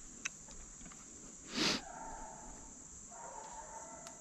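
Hounds baying in the distance: two drawn-out bays, the second running to the end. About one and a half seconds in, a short loud burst of hiss comes before them, over a steady high hiss.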